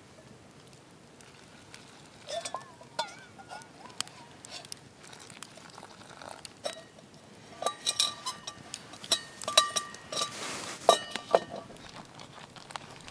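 A small metal camp pot hung from a stick clinks and rattles, giving a run of light knocks with short ringing tones that is densest from about eight to eleven seconds in, as hot water is poured from it into a food bag, with a brief hiss of pouring water near the end of that run.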